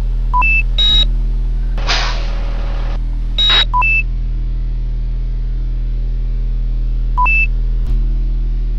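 Electronic beeps and blips in short groups of two and three tones at different pitches, sounding several times over a steady low electrical hum. A brief burst of hiss comes about two seconds in.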